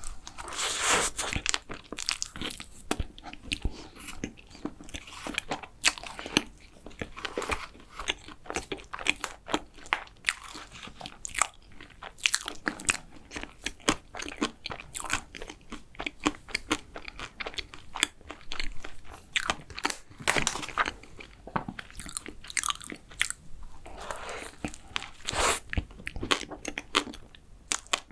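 Close-miked eating of a chewy chocolate macaron: crisp shell crunching and steady chewing with many small clicks, and louder bites about every five seconds.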